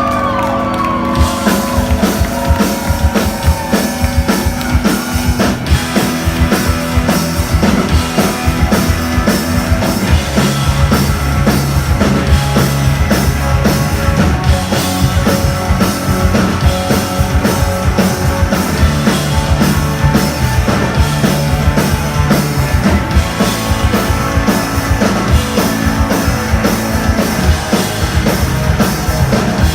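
A rock band playing live, loud, with drum kit and electric guitars driving a steady beat and no vocals.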